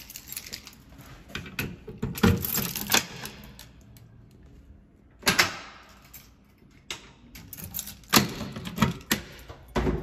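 Irregular clicks, taps and knocks of someone moving about and handling things, with sharper knocks about two, five and eight seconds in.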